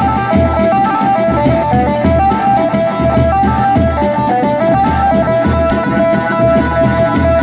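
Adivasi wedding band (bend baja) playing a ringtone-style tune: a bright, stepping melody over a steady thudding beat.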